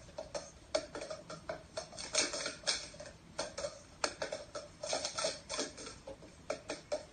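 Plastic sport-stacking cups clattering as two stackers, one hand each, build and collapse them at speed in a doubles cycle stack. Quick irregular flurries of light clacks as cups knock into each other and against the mat.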